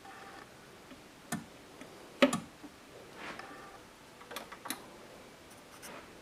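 Clicks and knocks from handling a Linn Sondek LP12 turntable: the tonearm is lifted off the record and set back on its rest, with the loudest knock about two seconds in. A couple of sharp clicks follow about four and a half seconds in as the power switch is pressed to stop the platter.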